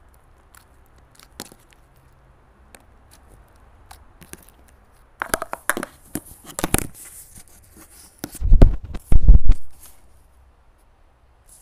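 Jelly cube slime being stretched and squished by hand, with scattered sticky clicks and a spell of crackling and tearing about halfway through. Near the end come two loud low thumps.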